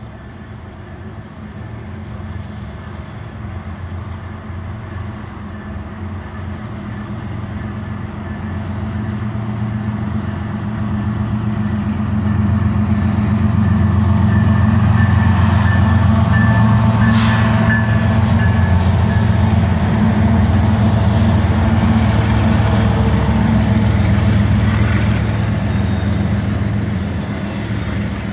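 CSX freight train led by two diesel locomotives passing close by, their engine rumble growing louder as they approach for about the first half and staying loud as they go past, then easing slightly as the autorack cars roll by.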